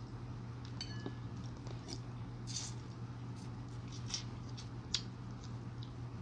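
Person eating chicken soup: soft wet chewing and mouth sounds, with scattered light clicks of a metal spoon, over a steady low hum.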